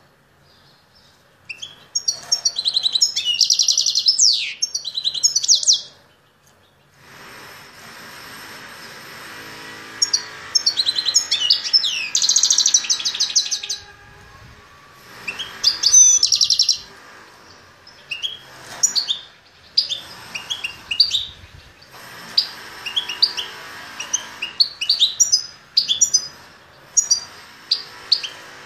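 Caged finch singing: fast, high twittering song phrases of a few seconds each, with pauses between them, giving way in the second half to shorter separate chirps.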